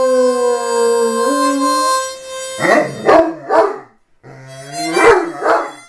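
A harmonica playing while a fawn Great Dane puppy howls along. A long, wavering howl drops slightly in pitch over the first two seconds, then a quick run of short, choppy notes follows, with a few more near the end.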